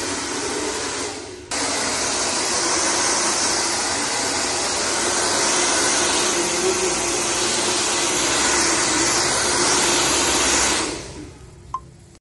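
Handheld hair blow dryer running steadily, with a brief dip about a second in, then switched off near the end, its whir dying away, followed by a small click.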